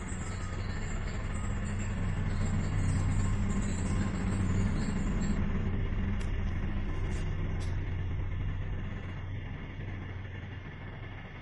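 A low mechanical rumble with a steady hum, growing louder a couple of seconds in and fading away toward the end.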